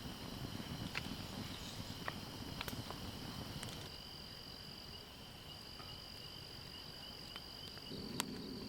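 Steady high-pitched chorus of crickets trilling, with a few sharp crackles and pops from the campfire scattered through it.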